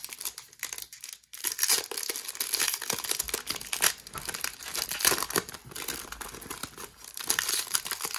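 Foil wrapper of a Donruss football card pack being torn open and crinkled by hand: a dense run of crackling and tearing, with a brief lull about a second in.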